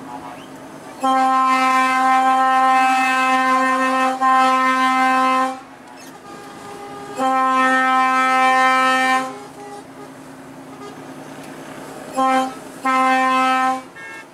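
Truck air horn blowing in steady single-pitch blasts: a long one of about four seconds starting a second in, one of about two seconds around seven seconds in, then a short toot and a one-second blast near the end. Cab engine and road noise runs underneath between blasts.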